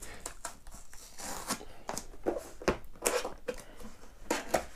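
Cardboard box being opened by hand: a paper seal tearing and the flaps scraping and popping free, a run of short crackles and snaps, the sharpest about two-thirds of the way through and near the end.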